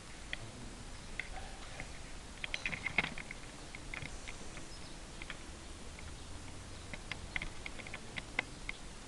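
Scattered light clicks and taps, with a quick cluster of them about two and a half to three seconds in and more near the end.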